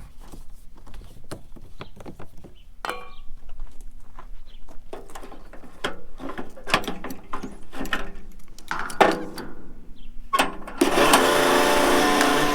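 A run of scattered mechanical clicks, knocks and clanks, then near the end a louder motor starts up and runs steadily.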